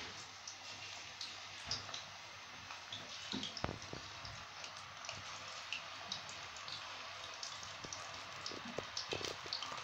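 Raw potato slices sizzling in hot oil, a steady hiss with many small crackling pops, as more slices are slipped into the oil one at a time.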